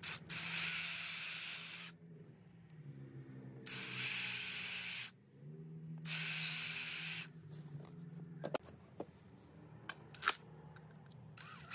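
Milwaukee Fuel cordless drill running in three bursts of a second or two each, with a steady high whine, as it drills and drives screws through the PVC jamb repair piece into the aluminium threshold. A few sharp clicks follow near the end.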